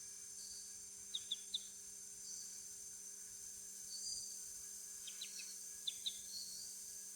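Rainforest ambience: a steady, high-pitched chorus of insects, with quick groups of three short chirps about a second in and again near the end. A faint steady low hum lies underneath.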